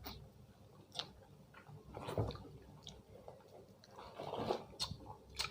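A person chewing food close to the microphone, with soft wet mouth sounds and a handful of short sharp clicks scattered through.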